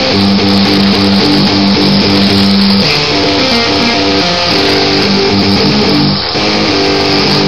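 Background music led by guitars, with a steady bass line.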